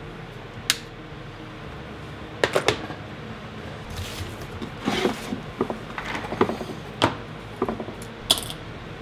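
Small hard objects handled on a workbench: irregular sharp clicks and knocks as things are picked up and set down, with a short rustle about four seconds in.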